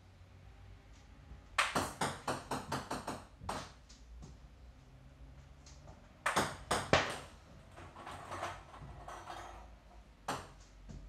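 Table tennis serving practice: sharp clicks of a ping-pong ball off the paddle and the table. About two seconds in comes a quick run of bounces that fades away, about six seconds in a loud group of clicks, and one more click near the end.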